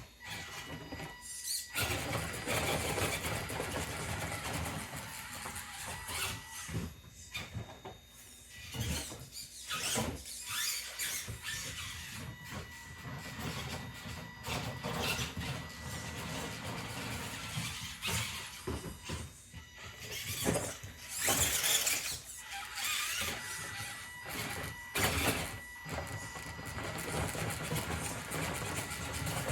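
Small electric RC crawler's motor and gears whining in stop-start spurts as it crawls over the obstacle.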